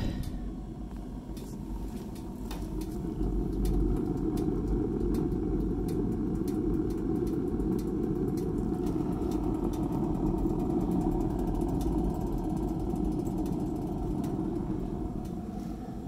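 Gravity-fed wood pellet burner running: a steady rumble of the fan-driven pellet fire and its 12-volt exhaust fan, with faint ticks and crackles.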